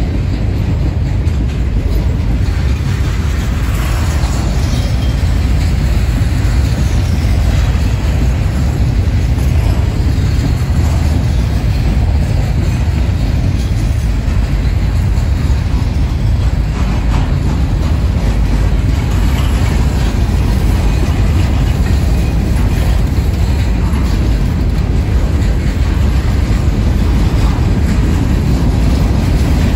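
Freight cars of a long mixed freight train rolling past at trackside, a steady loud rumble of steel wheels on the rails.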